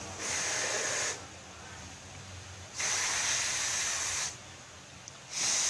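A person blowing long breaths onto a temperature and humidity sensor to warm it and raise the humidity: three separate puffs of about a second or more each, the third starting near the end. The small cooling fans run faintly underneath.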